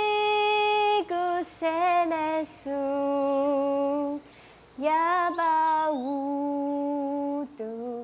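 A woman singing alone, without accompaniment, in a slow melody of long held notes, with short breaks between phrases.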